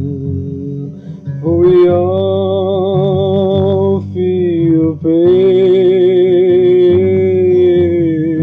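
Music from an unplugged song: a voice holds two long notes with vibrato over steady accompaniment.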